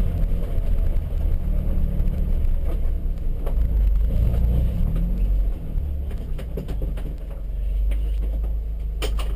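Toyota Yaris rally car's four-cylinder engine heard from inside the cabin, pulling at low speed with a steady low rumble and a brief rise in revs about halfway through. A few sharp clicks or knocks come in the second half and again near the end.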